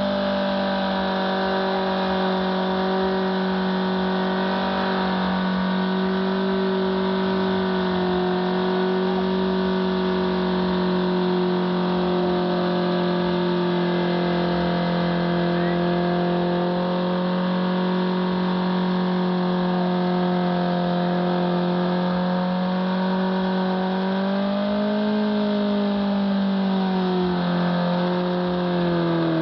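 Boldor motorcycle engine held at high, steady revs during a burnout while the rear tyre spins and smokes. Near the end the revs climb briefly, then drop.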